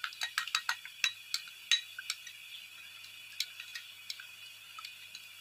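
Cornflour slurry being stirred in a small container, the utensil clinking against its side in quick, irregular light ticks that thin out after about two seconds.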